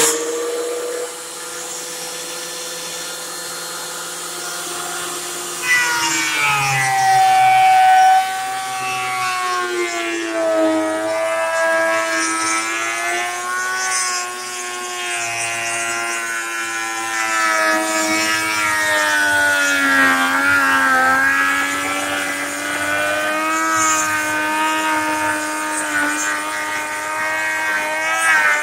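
Ridgid 13-inch benchtop thickness planer running: a steady motor whine, then about six seconds in a board feeds into the cutterhead and the sound gets louder and drops in pitch under load. The pitch keeps wavering as the weathered old lumber is planed.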